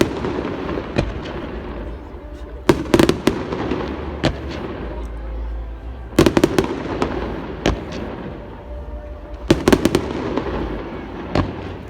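Fireworks display: clusters of sharp bangs from bursting aerial shells every few seconds, with continuous crackling and rumbling between the volleys.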